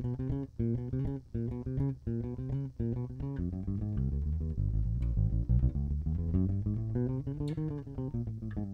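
Electric bass guitar played fingerstyle, running a chromatic-type finger exercise: short separated notes at first, then from about three seconds in a connected line that steps up and back down in pitch.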